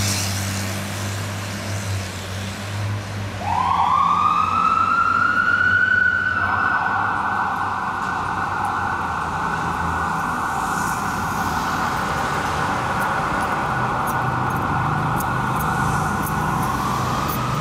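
Fire engine siren winding up over about three seconds and then held at a steady high pitch, rising again near the end. The truck's diesel engine rumbles low underneath at the start.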